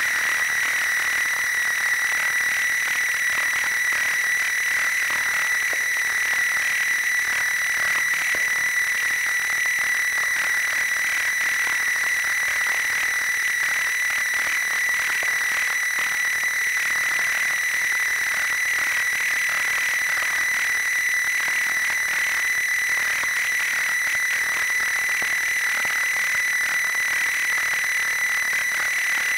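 Electronic synthesizer drone: one steady high tone held over a hiss of noise, unchanging in pitch and loudness.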